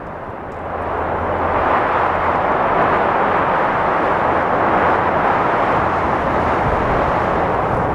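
Medium wind gusting through trees: a steady rushing noise that swells over the first second or two and then holds, with a low rumble underneath.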